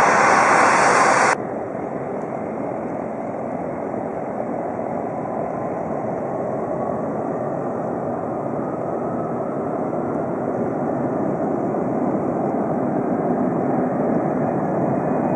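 Boeing 747-400's four jet engines at takeoff power, a steady rushing roar that slowly grows louder. It follows a loud hiss that cuts off abruptly about a second in.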